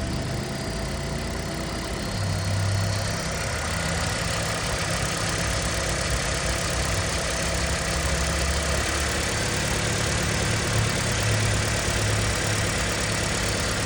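Toyota Prius gasoline engine idling steadily, held running in maintenance mode; the engine has a known head gasket fault.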